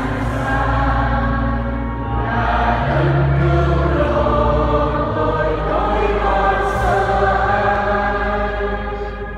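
Choir singing a hymn in long held notes over a steady low accompaniment.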